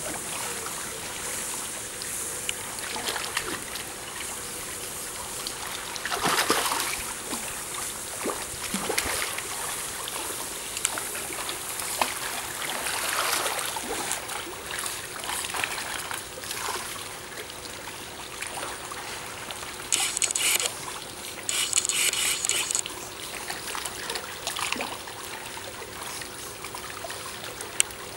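Pool water splashing and trickling as penguins swim and paddle at the surface, over a faint steady hum. About two-thirds of the way through come two short, loud bursts of high hiss.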